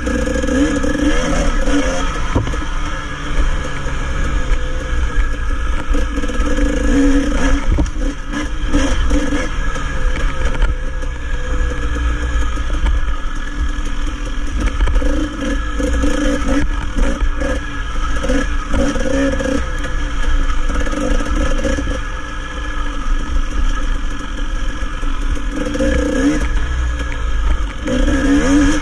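Dirt bike engine running under load, its pitch rising and falling again and again as the rider throttles on and off along the trail, over a heavy low rumble with some clatter from the bike.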